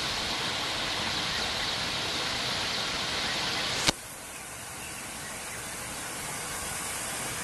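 Steady hiss of outdoor background noise, broken by one sharp click about four seconds in, after which the hiss is quieter.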